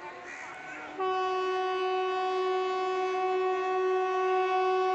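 An Indian Railways WAP-5 electric locomotive's horn sounding one long, steady blast on a single note, starting about a second in.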